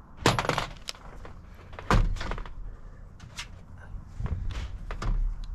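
Irregular knocks, clicks and clatter of hand tools and metal racking parts being handled, with two louder clanks, one just after the start and one about two seconds in. No power tool is running.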